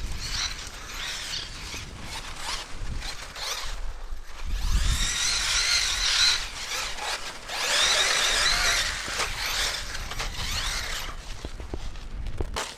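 Brushless electric motor and geared drivetrain of an Arrma Kraton EXB RC truck on 6S, whining as it is throttled. The pitch swings up and down, with two louder runs about five and about eight seconds in.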